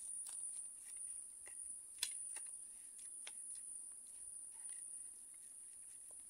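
A steady high-pitched drone of insects, with scattered light clicks of spoons and forks on plates, the sharpest about two seconds in.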